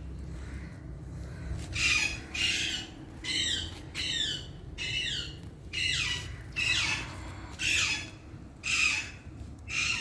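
Indian ringneck parakeet squawking over and over: about ten short calls, a little under a second apart, several of them falling in pitch, beginning about two seconds in.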